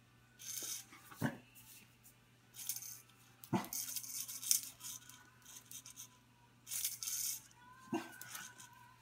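A puppy playing at an extended steel tape measure: several short hissing bursts, with sharp knocks about a second, three and a half seconds and eight seconds in.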